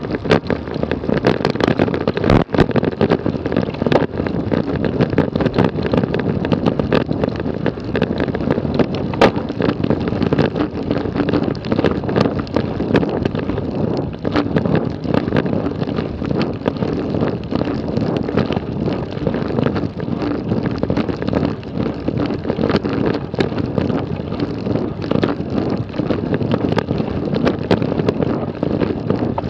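Wind rushing over the microphone of a camera on a moving road bike, a steady loud noise with scattered small ticks and knocks.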